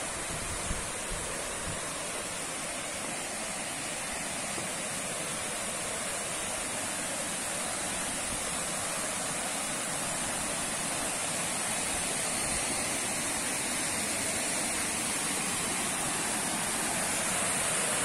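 Steady rush of a waterfall and river water pouring over rocks, growing slightly louder as the rapids get closer.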